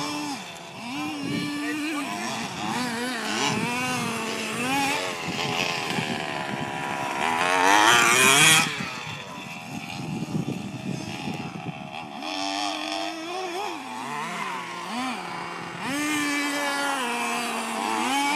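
Small two-stroke engines of radio-controlled buggies and a monster truck revving up and down, the pitch rising and falling again and again, loudest in a high-revving burst about eight seconds in.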